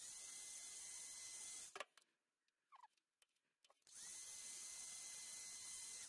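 Electric heat gun blowing hot air onto heat-shrink tubing over soldered wire splices, a steady hiss with a steady high whine. It runs twice for about two seconds each, with a short pause between, and the whine rises briefly as it starts the second time.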